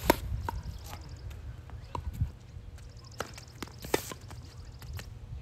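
Tennis rally: a tennis ball struck by rackets and bouncing on the hard court, a sharp hit from the near racket right at the start and another about four seconds in, with fainter hits, bounces and footsteps between.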